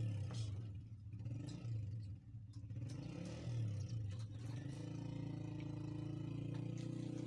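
A motor or engine running with a low hum. Its pitch wavers up and down for the first few seconds, then settles to a steady pitch about four and a half seconds in.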